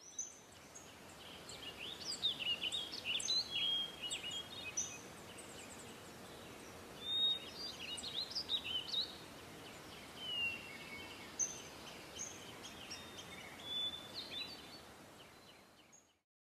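Several birds chirping and whistling in short, varied calls over a steady outdoor hiss, fading out near the end.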